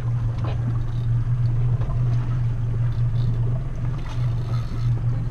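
Fishing boat's engine running steadily aboard the boat, a constant low drone with some water and hull noise over it.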